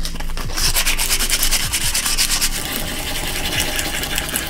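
Coarse 40-grit sandpaper rubbed by hand along a holly-wood wand blank, a steady run of quick back-and-forth strokes.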